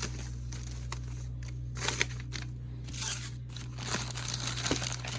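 Paper and a bag rustling and crinkling in irregular bursts as receipts and cards are handled, with a few light clicks, over a steady low hum.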